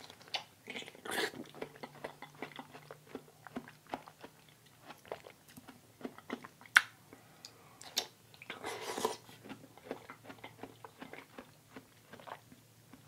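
Close-up wet chewing of a piece of raw aloe vera: a run of small mouth clicks and smacks, with a few louder ones about a second in and around seven to eight seconds.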